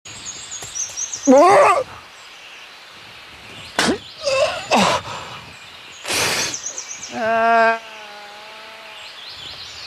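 A wounded man groaning in pain: a loud wavering cry, short cries, a breathy gasp, then a long held moan near the end. Birds chirp faintly in the background.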